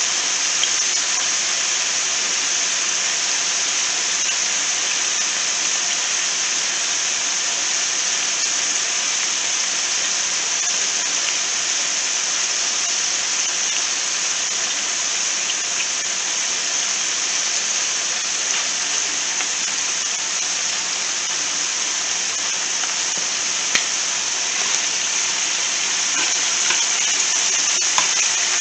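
Cubed chicken frying in hot oil in a skillet, a steady sizzle. Near the end a few sharp clicks as metal tongs turn the pieces.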